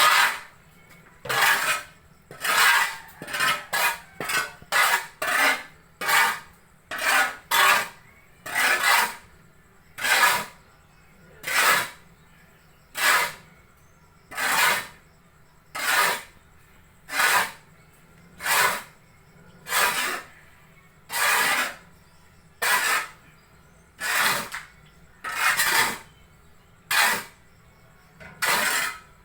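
Repeated scraping strokes of a tool working through a sawdust mixture for mushroom substrate. The strokes are quick and uneven at first, then settle into a steady rhythm of about one every second and a half.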